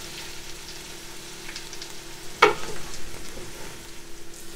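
Potato and carrot chunks sizzling as they fry in butter with onions in a metal pot, stirred with a wooden spoon. One sharp knock, the spoon striking the pot, comes about two and a half seconds in.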